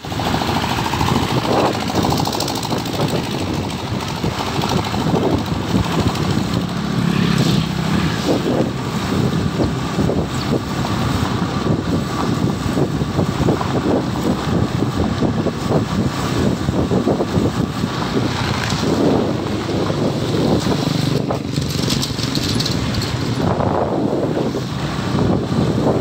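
Motorcycle riding over a rough, half-repaired gravel road: the engine runs steadily under a constant clatter of tyres and bodywork rattling over loose stones.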